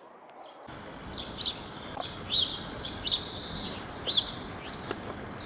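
Small birds chirping: short, high, down-slurred chirps repeated every half second or so over a faint background hiss, starting about a second in after near silence.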